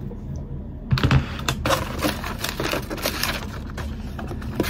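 Unboxing handling sounds: the crinkle and rustle of the thin white protective wrap being pulled off a new laptop, with many light clicks and taps, starting about a second in.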